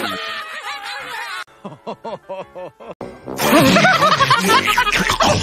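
Cartoon characters laughing as a group: a run of short, rhythmic "ha-ha" laughs, then louder, fuller laughter from several voices starting a little over three seconds in.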